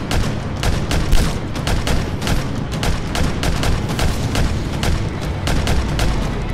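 Rapid, uneven fire from paintball markers, several shots a second in overlapping volleys, over a continuous low rumble.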